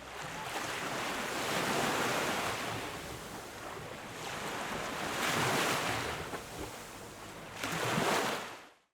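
Atlantic Ocean surf washing onto the beach, the noise swelling three times as waves break, then fading out at the end.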